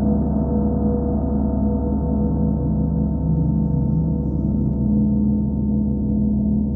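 Large hanging gongs ringing on in a dense, steady wash of overlapping tones that slowly waver and pulse, with no fresh strike.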